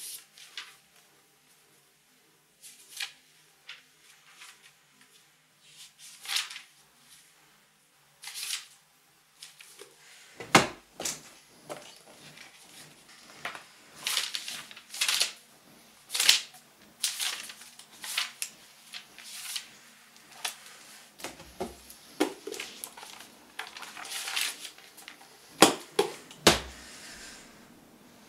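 Paper rustling as book or notebook pages are leafed through and handled, in irregular short rustles. The rustles come a few seconds apart at first and more often from about ten seconds in.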